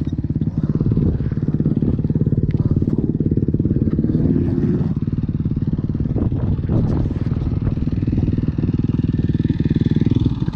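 Yamaha dirt bike engine idling steadily, left running while the bike lies on its side after a crash.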